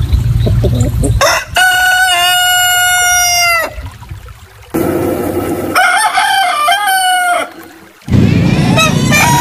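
A low rumble, then two long rooster crows, each rising into a long held note that drops away at the end; the second crow wavers. Near the end a quick run of short repeated calls begins.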